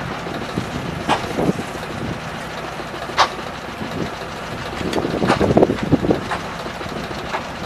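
Engine running steadily at idle, with two short sharp knocks about a second and three seconds in and a louder rough stretch about five seconds in.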